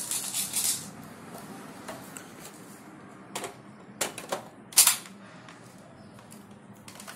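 Handling of a homemade spring airsoft SVD Dragunov rifle: a short rattle at the start, then three sharp plastic clicks about a second in from the middle, the last the loudest.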